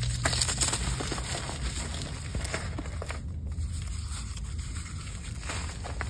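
Soft molded blocks of Bon Ami and cornstarch crushed and crumbled between the fingers, giving dense crackling crunches. The crackling is strongest about the first second and eases briefly around the middle.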